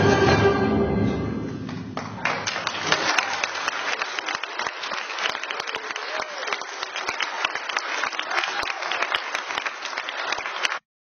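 A junior high concert band's final chord rings and fades over the first second or two, then the audience applauds, and the sound cuts off abruptly near the end.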